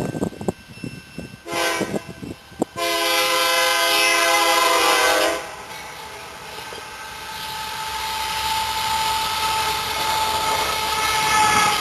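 Canadian Pacific AC4400 diesel locomotive's air horn sounding twice, a short blast and then a longer one. It is followed by the rumble of the loaded coal train growing steadily louder as it nears, with a steady high squeal over it.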